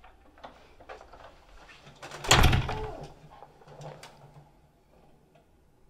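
Upright piano keys slammed at once, one loud crash about two seconds in whose low notes ring on and fade, with a few faint knocks of hands on the keys around it.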